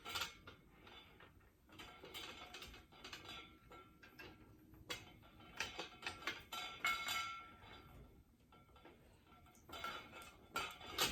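Metal light stand and boom arm being handled and fitted together: irregular clicks, clinks and rattles of the tubes and joints, with short scraping, ringing metal.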